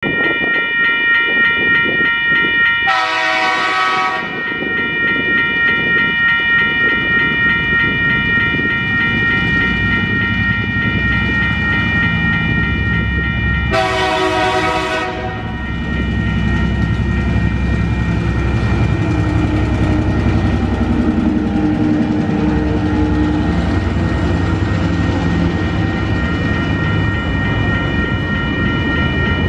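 TasRail TR class diesel-electric locomotive TR09 sounding two horn blasts about ten seconds apart, over the steady pulsing ring of level crossing warning bells. After the second blast its engine and a long train of container wagons rumble past with wheel clatter.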